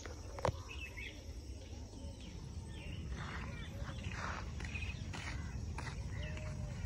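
Outdoor park ambience: scattered faint bird chirps over a steady low rumble of wind, with one sharp click about half a second in.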